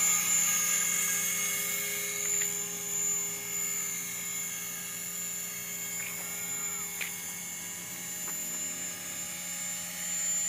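Align T-Rex 500 electric radio-controlled helicopter in flight: a steady whine from its motor and rotor blades. It is louder at first and quieter as it flies farther out over the field.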